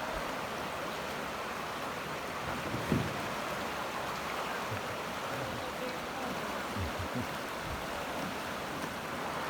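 Creek water rushing steadily over shallow rapids, with a low knock about three seconds in and a few fainter ones near seven seconds.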